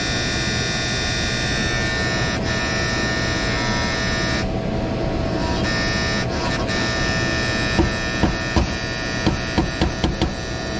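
Contactor in a Trane air handler's electric heat kit buzzing with a steady hum, which the technician judges to be just noise rather than a faulty contactor. From about eight seconds in, a run of sharp taps, roughly three a second, comes from tapping at the contactor to quiet it.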